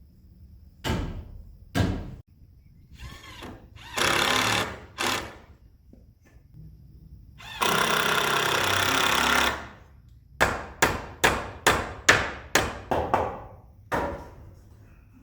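Building work on timber framing: a few sharp knocks and a couple of seconds of a steady, hissing tool noise. Then a quick run of about ten sharp hammer blows, about three a second.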